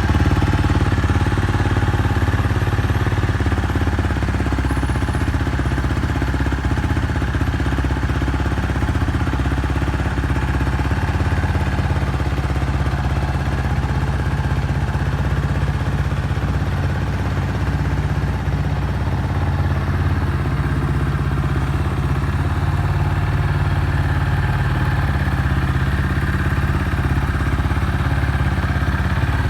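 Yamaha Tricker 250's air-cooled single-cylinder engine idling steadily through a DIRTFREAK Delta full exhaust, running without abnormal noises.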